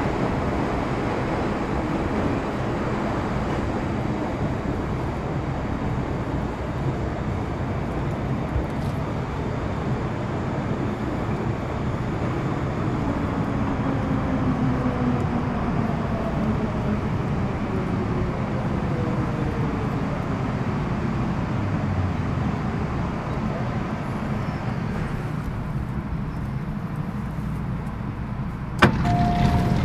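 Interior running noise of an MTR Metro Cammell M-Train EMU with GEC GTO chopper traction. Several whining tones from the traction equipment fall in pitch as the train slows. Near the end there is a sudden click and then a steady tone.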